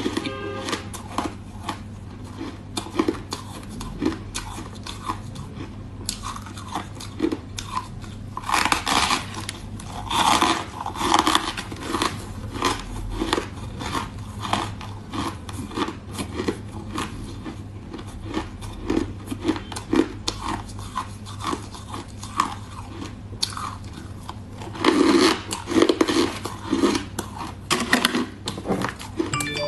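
Crushed ice being bitten and chewed close to the microphone: irregular sharp crunches and crackles, in louder flurries twice, over a steady low hum.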